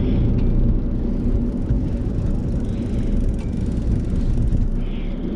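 Steady low rumble of a fishing boat's engine running, with a faint constant hum above it.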